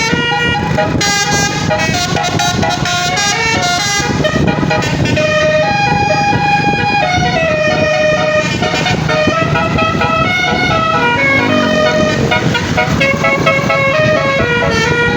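Bus telolet horn with twelve trumpets playing a tune, its held notes stepping up and down in pitch, over a steady low engine rumble.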